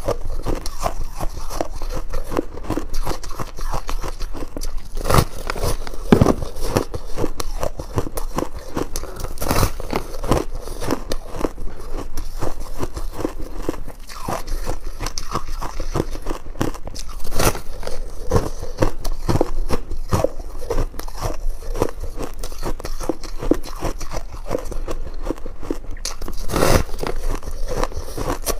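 Frost ice being bitten and chewed close to the microphone: a dense, continuous run of crisp crunches, with a few bites louder than the rest.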